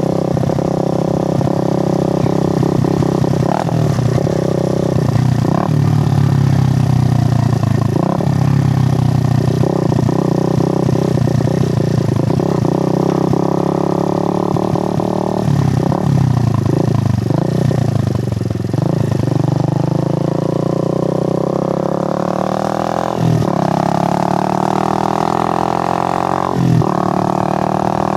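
Suzuki GN125's air-cooled single-cylinder four-stroke engine under way, its pitch rising and falling with throttle and gear changes. Toward the end it accelerates, pulling up through two upshifts.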